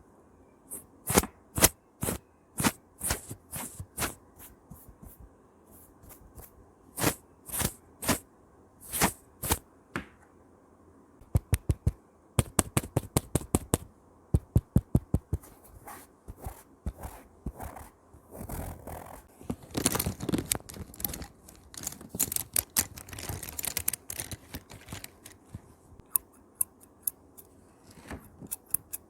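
Close, dry handling sounds of a paintbrush and a keyboard. About a dozen separate short brushing strokes come first, then a quick run of sharp clicks at roughly five a second, then a stretch of dense, continuous scratching.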